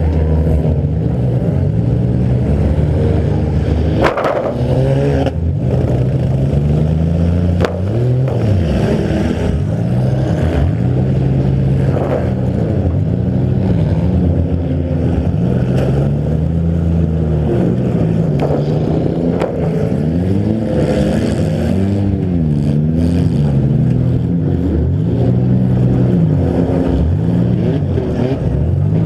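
A demolition derby car's engine, heard from inside the car, revving up and down over and over as it drives and reverses. A few sharp bangs from hits and collisions cut through it.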